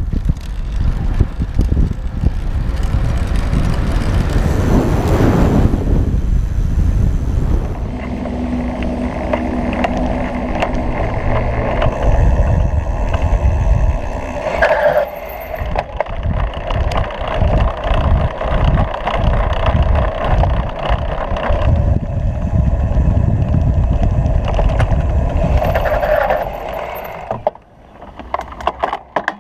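Riding noise of a Stromer ST2 electric bike, picked up by a camera mounted on the frame: wind rushing over the microphone and tyre rumble on pavement, with a run of knocks and rattles from bumps in the middle. It quietens briefly near the end.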